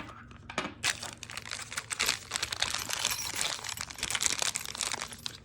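Small plastic parts bag crinkling as it is handled and opened, a dense run of irregular crackles starting about a second in.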